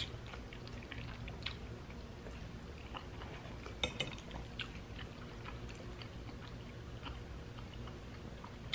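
Quiet chewing of a mouthful of spaghetti with soft, wet mouth sounds and small scattered clicks, and a fork clinking against the bowl about four seconds in as more noodles are twirled.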